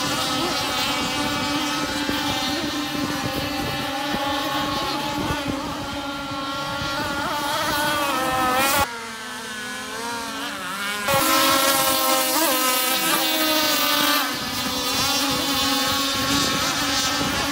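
Several radio-controlled model racing boats' motors whining at high pitch, several tones rising and falling against each other as the boats throttle up and down around the course. About two seconds in the middle are quieter, before the whine comes back louder.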